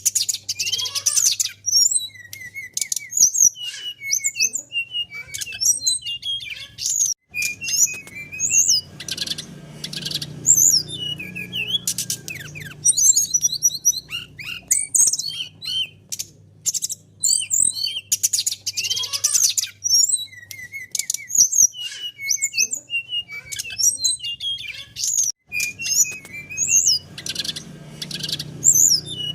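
Small songbirds singing in quick, varied high chirps and trills, phrase after phrase with short pauses between, the same phrases coming round again.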